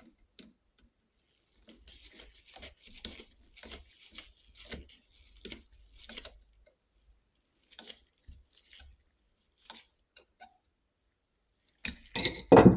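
A screwdriver held on the clutch-lever roller bolt while its nylon lock nut is done up: a run of small metal clicks and scrapes with the rustle of gloved hands, then a louder burst of handling noise near the end.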